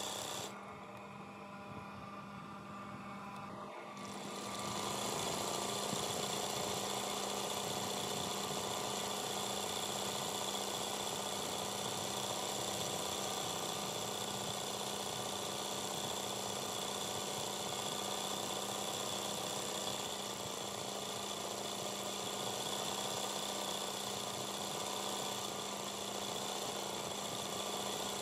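Sewing machine running steadily at speed, its needle stitching freehand embroidery through fabric held in a hoop. It is quieter for the first few seconds, then louder from about four seconds in.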